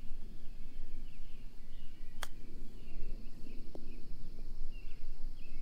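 One sharp click about two seconds in, a golf club striking the ball on a short chip shot, over birds chirping and a steady low outdoor rumble.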